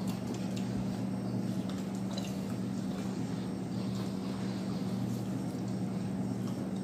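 Wet squishing, smacking and soft clicks of gloved hands peeling seafood and of chewing, over a steady low hum.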